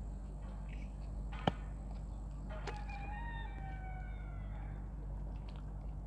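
A rooster crowing once, a long call of about two seconds that falls gently in pitch, starting about two and a half seconds in, over a steady low hum. A sharp click sounds about a second and a half in.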